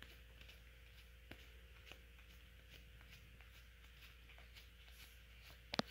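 Faint soft clicks and rustles of cardboard baseball cards being thumbed off a stack from one hand to the other, with one sharper card snap near the end.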